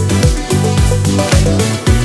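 Background music with a steady beat of about two kick-drum strikes a second over a bass line.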